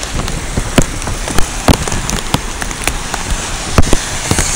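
Steady rain, with irregular sharp taps of drops striking close by. Near the end, the wash of a minivan's tyres through standing floodwater builds in.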